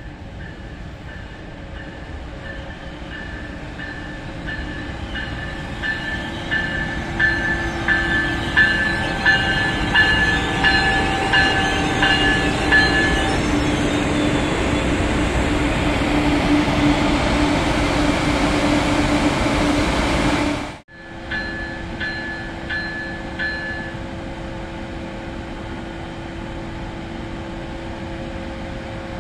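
A train runs past with a bell ringing about one and a half times a second. The rumble grows louder and then cuts off suddenly about two-thirds of the way in. The bell and a steady train sound then resume, quieter.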